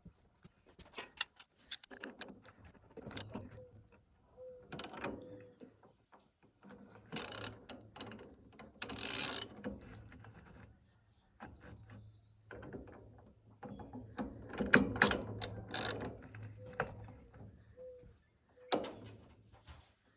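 Hand tools working on the forklift's metal steering parts: scattered ratchet clicks and metal clanks, with a few louder scraping bursts about a third of the way in and again past the middle.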